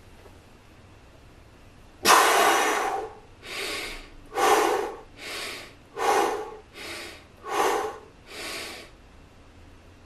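A man breathing hard and deliberately while pressing a barbell overhead, drawing air in and forcing it back out. It starts suddenly with a loud breath about two seconds in, followed by alternating louder and softer breaths, eight in all, about one every 0.8 seconds, stopping near the end.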